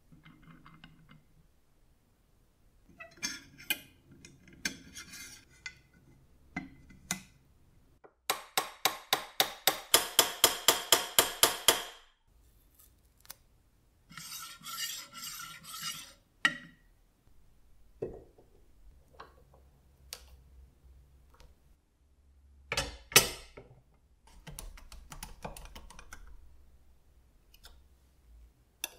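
Clinks, scrapes and knocks of metal and crockery being handled. Midway comes a loud run of fast, even cutting strokes, about four a second, lasting roughly four seconds.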